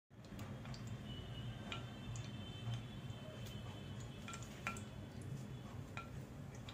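Oil heating in a wok on a gas stove, with faint scattered ticks and crackles over a low steady hum.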